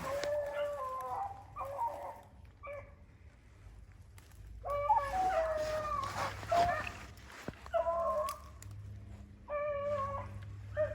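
Rabbit hounds baying on a rabbit's scent: repeated long, wavering calls in bouts, loudest about five to seven seconds in.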